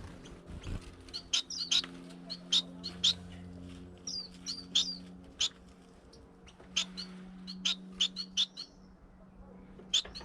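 Small aviary finches, star finches and society finches, giving many short, sharp chirps at irregular intervals, with a brief lull near the end.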